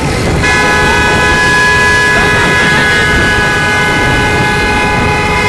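Vehicle horns held down over the running engines of a convoy of motorcycles and cars; a long, steady multi-tone horn starts about half a second in and keeps sounding, with shouting voices mixed in.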